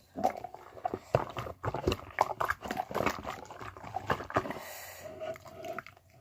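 Slime being kneaded and squished by hand, giving a dense run of irregular wet clicks, pops and squelches.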